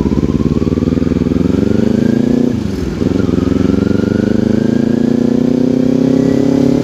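Kawasaki Ninja 250 engine pulling under acceleration, its pitch climbing steadily, then dropping briefly about two and a half seconds in as it shifts up a gear, and climbing again through the next gear.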